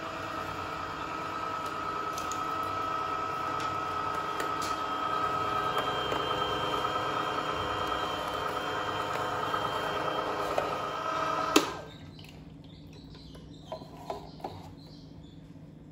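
Vertical slow (masticating) juicer running steadily with a whine, crushing watermelon. It switches off with a click about three-quarters of the way through, followed by a few faint plastic clicks.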